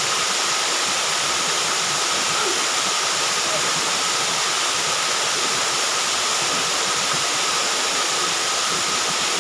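Waterfall pouring steadily: a constant, even rushing of falling water with no break.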